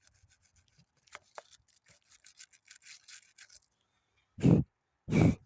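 A brush scrubbing corrosion off a battery cable terminal in quick back-and-forth strokes, then two short, loud bursts of noise near the end.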